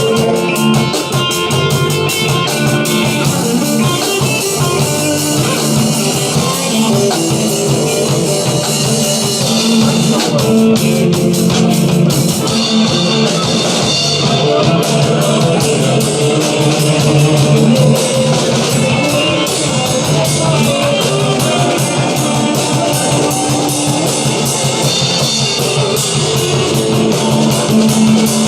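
Rock music with a drum kit and guitar, playing at a steady loudness.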